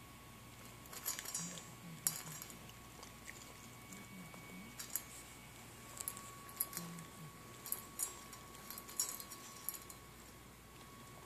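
A puppy eating dry kibble from a metal bowl: irregular crunches of chewing and clinks of kibble against the bowl, coming in little clusters every second or two.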